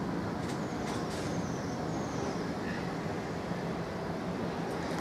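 TfL Rail Class 345 Aventra electric train moving slowly along the platform, a steady low rumble of wheels and running gear. A few faint high chirps sound over it.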